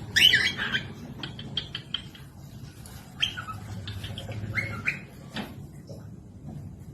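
Small parrot calling: a loud squawk just after the start, then a run of short sharp chirps and a few more squawking calls.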